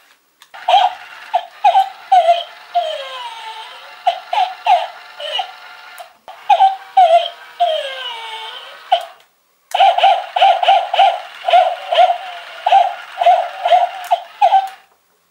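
Plush remote-control toy dog playing its recorded puppy bark through its speaker: rapid high yaps mixed with a few falling whines. It comes in several runs with short silences between them.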